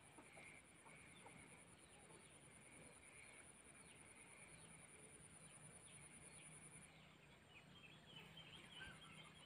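Near silence: faint open-air swamp ambience with a steady high thin whine that drops out briefly near the end, and scattered faint short chirps that grow more frequent near the end.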